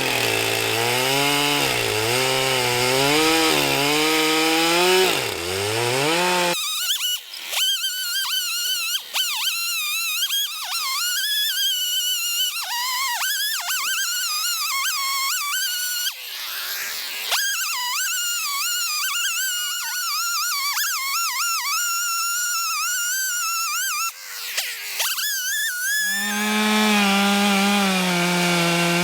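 Stihl MS 441 chainsaw cutting into a red oak burl, its engine pitch rising and falling as the cut loads and frees it. For much of the middle only a high, wavering whine is heard, and a steadier engine note returns near the end.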